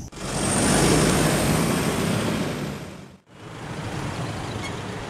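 A pickup truck's engine and tyre noise swells and fades as it drives past, then after a sudden cut about three seconds in gives way to steadier, quieter road noise of the truck driving.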